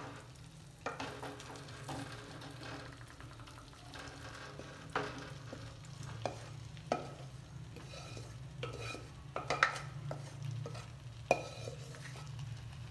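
Wooden spatulas scraping and knocking cooked chicken pieces out of a non-stick kadhai into a pan of masala gravy, with sharp scrapes every second or so over a faint sizzle of the gravy. A low steady hum lies underneath.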